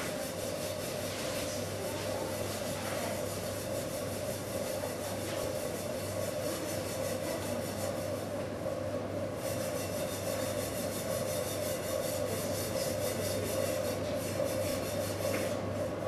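Electric potter's wheel running with a steady hum at a constant pitch, while hands rub and shape wet clay on the spinning wheel head.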